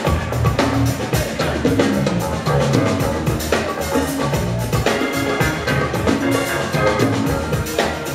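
Live rock band music: electric bass and drum kit playing together with a steady beat.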